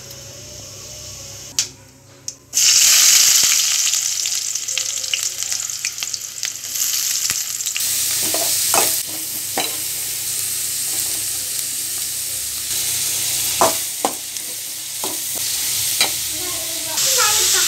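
Chopped onions frying in hot oil in a steel kadai: quiet at first, then a sudden loud sizzle about two and a half seconds in as they go into the oil, and a steady sizzle after that. A steel spatula stirs the onions and, later, the green capsicum added to them, clinking against the pan now and then.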